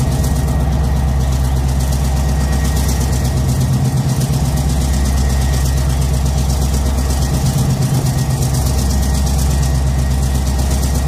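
Diesel engine of a PzH 2000 self-propelled howitzer idling steadily, a deep even hum.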